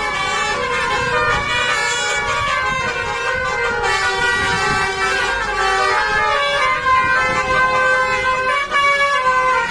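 Bus's multi-tone 'telolet' Basuri horn playing a melody, several horn notes sounding together and stepping from pitch to pitch without a break.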